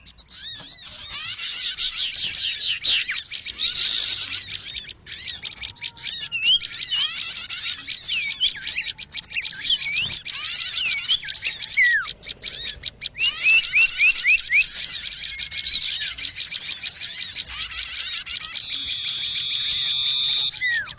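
Bird-lure recording of many small birds chirping and twittering at once, rapid calls overlapping in a dense chorus, with a held high note near the end.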